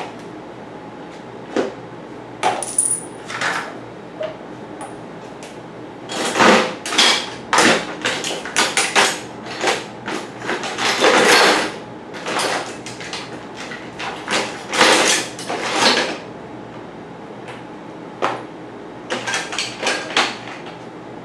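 Small metal bike parts and bolts clattering and clinking as they are rummaged through in a bucket: scattered clicks at first, then a long run of dense rattling with a sustained shuffle around the middle.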